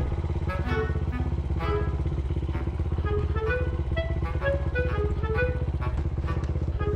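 Honda Ape's small single-cylinder four-stroke engine running steadily, with background music playing over it.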